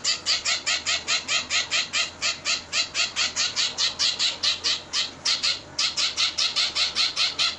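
A 22-day-old zebra finch fledgling giving rapid, high begging calls, about four a second, with one short break near the end. These are the hungry cries of a chick calling to be hand-fed.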